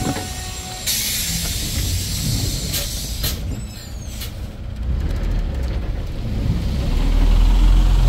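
Hyundai New Super Aerocity city bus with a CNG engine at the stop: a long hiss of released air about a second in, then its engine's low rumble swelling as the bus pulls away, loudest near the end.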